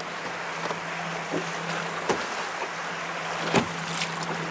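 Boat sounds on open water: a steady low hum under a constant wash of water and wind noise, with two sharp knocks, the second and louder one about three and a half seconds in.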